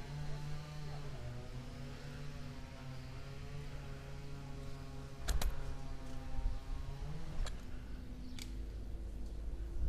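A steady, low mechanical hum, slightly wavering in pitch, that fades out about two-thirds of the way through. A few sharp clicks cut in: two close together about halfway through, then single ones about 7 and 8 seconds in.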